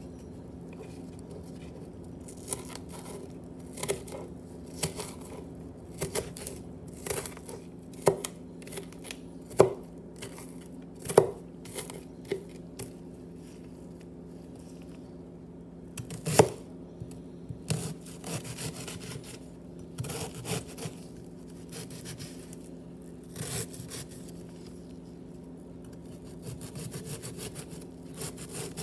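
Chef's knife slicing through a halved onion and knocking down onto a thin plastic cutting mat over a wooden board, in irregular strokes with pauses, quickening into a fast run near the end. A steady low hum runs underneath.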